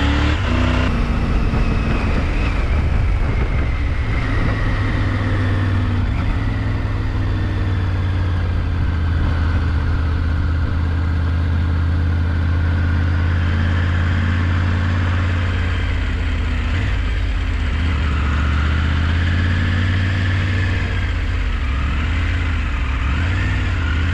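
Adventure motorcycle engine running while being ridden on the road, under steady wind and road noise. Its pitch rises at the start and swings up and down several times near the end as the throttle is opened and closed.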